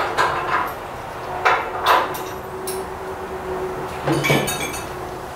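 Metal parts being handled: a handful of separate knocks and clinks, with a brief ringing metallic clink about four seconds in, as bolts are fitted to a tractor radiator's mounting bracket.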